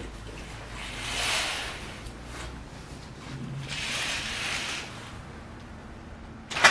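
Long fabric curtains being drawn open along their rail: two swishes about two seconds apart, each lasting about a second. A short, sharp click near the end.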